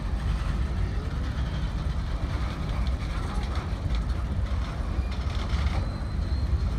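Freight train of boxcars rolling past, a steady low rumble of steel wheels on the rails.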